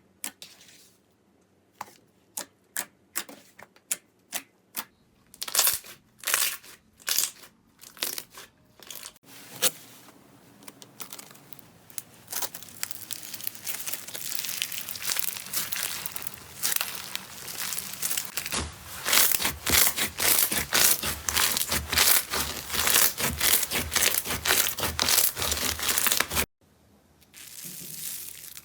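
Slime being squeezed and poked by hand. It starts with separate sharp clicks and pops, then builds into a dense run of crackling and crunching that cuts off suddenly near the end, followed by softer crackles.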